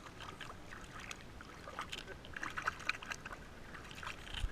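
Water splashing and lapping, with many short, irregular high clicks and blips.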